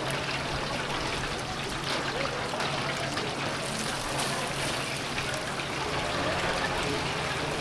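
Chicken pieces deep-frying in a vat of hot oil: a steady crackling sizzle.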